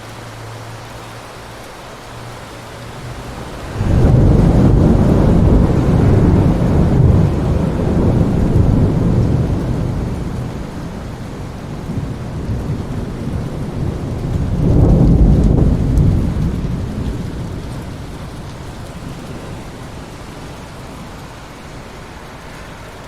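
Steady rain with thunder: a loud, low rumble breaks suddenly about four seconds in and rolls on for several seconds, and a second rumble swells about fifteen seconds in before fading.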